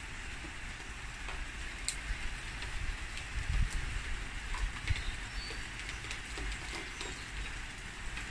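Heavy rain falling steadily, pattering on the pool water and wet paving, with a few low rumbles around the middle.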